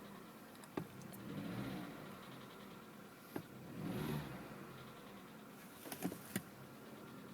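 Skoda Fabia 1.4 engine running cold with a knock. The engine note swells briefly three times, and a few sharp clicks come through. The knock on the unwarmed engine was traced to the pistons, and the piston group was replaced under warranty.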